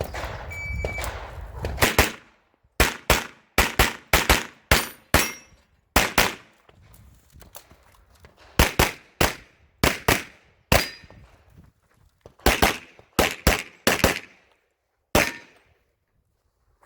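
A shot timer's electronic start beep, then a competition handgun firing about two dozen rapid shots, mostly in quick pairs, with two short breaks between strings as the shooter moves or reloads.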